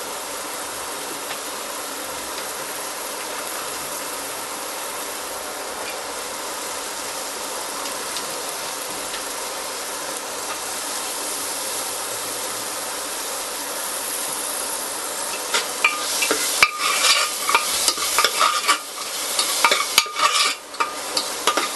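Chopped vegetables and tomato-spice masala sizzling in hot oil inside a pressure cooker, a steady hiss. From about three-quarters of the way through, a spoon stirring the vegetables in and scraping against the pot in irregular clatters.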